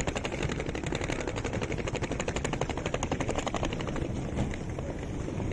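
Rolling suitcase wheels rattling fast over brick pavers, about ten clicks a second. About four seconds in the rattle gives way to a softer rolling sound on smooth concrete slabs.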